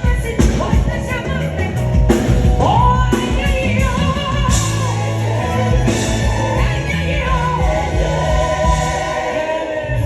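Live band, with drums and bass guitar, playing through a PA while a singer sings a wavering melodic line, heard during a sound check.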